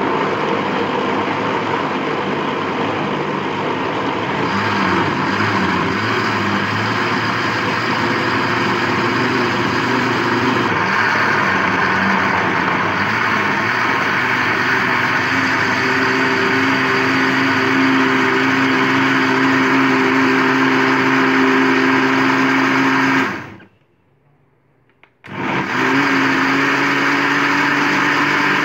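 Countertop electric blender running at full speed, pureeing whole red grapes with no water added. Its pitch steps up partway through as the grapes break down to pulp. It cuts off about 23 seconds in and starts again some two seconds later.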